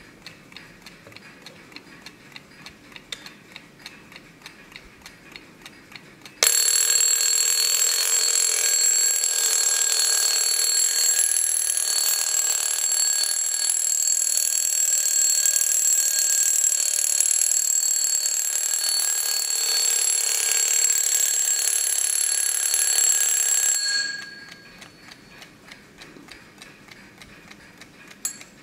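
Vintage Kienzle mechanical wind-up alarm clock ticking, then its alarm goes off about six seconds in with a loud, continuous ringing that lasts about seventeen seconds and cuts off suddenly, after which the ticking carries on.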